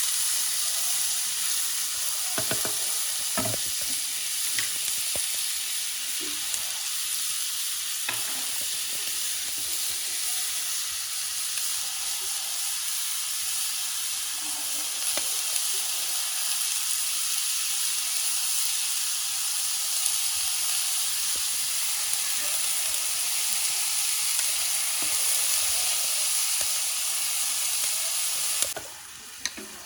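Mhajeb flatbread frying in hot oil with a steady sizzle, which drops away suddenly near the end.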